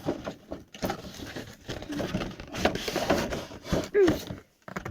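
Hands handling a doll's boxed packaging: an irregular run of short knocks, clicks and rustles.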